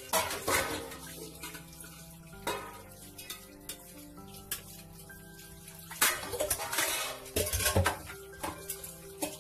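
Tap water running into a steel sink while stainless steel plates and bowls are rinsed and clink against each other, over background music. The splashing and clatter are loudest in the first second and again from about six to eight seconds in.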